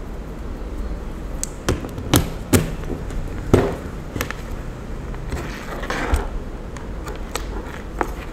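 A three-pin mains plug pushed into a power strip and cables handled on a table: a few sharp clicks and knocks, the loudest about three and a half seconds in, with some brief rubbing, over a steady low hum.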